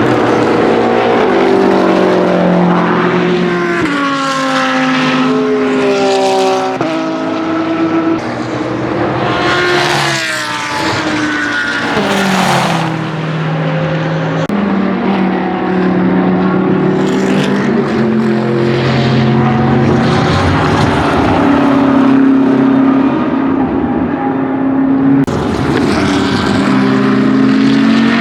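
BMW M6 GT3's twin-turbo V8 racing engine under hard acceleration, revs climbing and then dropping in steps at each gear change, with race cars passing by and their pitch falling as they go.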